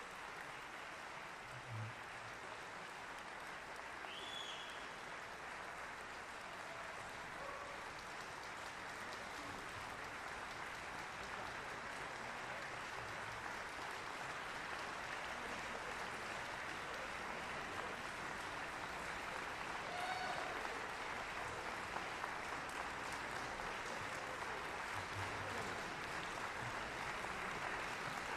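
Audience applauding, growing gradually a little louder.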